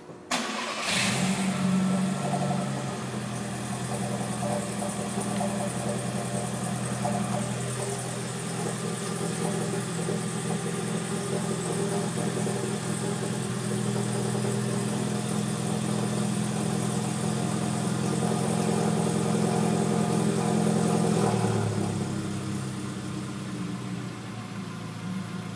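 Volkswagen Golf Mk6 engine starting from cold with a brief crank, then running at a raised cold-start idle that drops to a lower idle about 21 seconds in. The owner records it for an abnormal noise on cold start.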